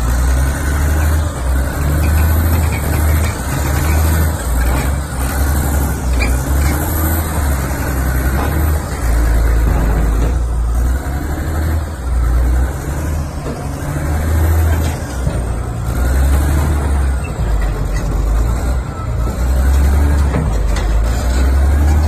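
Caterpillar D7R bulldozer's diesel engine running at idle, a steady low rumble, with wind buffeting the microphone in uneven gusts.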